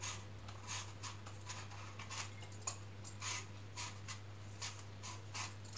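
Apple being peeled with a sharp handheld peeler: short, faint scraping strokes, about two a second.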